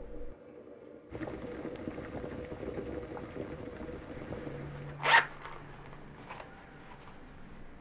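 A pot of liquid bubbling on an electric stove as it is stirred, a steady grainy sound that starts about a second in. About five seconds in comes a short, sharp rasp, the loudest sound, followed by a few faint clicks of handling.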